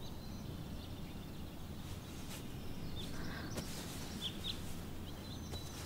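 Quiet background ambience with a few faint, short bird chirps.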